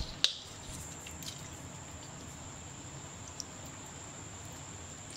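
A vinegar bottle handled over a bowl of chicken: a sharp click about a quarter second in, then a few faint ticks, over steady background hiss with a thin high-pitched whine.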